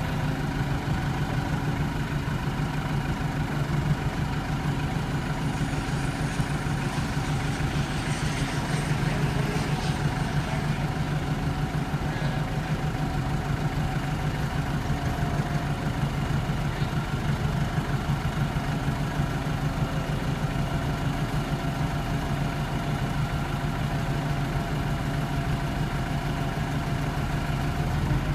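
Forklift engine idling steadily, with a brief faint hiss and high whine over it about a third of the way in.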